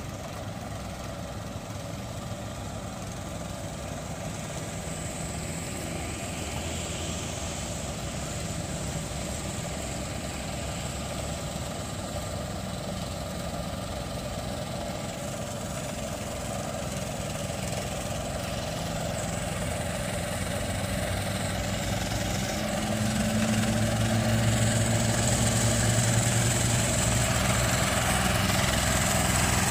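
Yanmar AP4 walk-behind rice transplanter's engine running steadily while it plants, growing louder as the machine comes closer, with a clear step up about three quarters of the way in.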